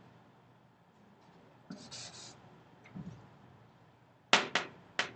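Chalk writing on a chalkboard: a faint scratchy stroke about two seconds in, then a few sharp taps of the chalk against the board near the end.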